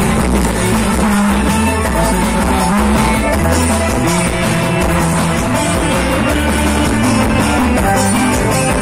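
Loud, steady band music with guitar and a driving beat.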